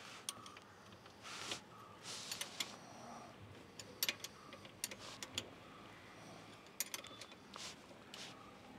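Scattered sharp light clicks and a few short rustling noises over a quiet background.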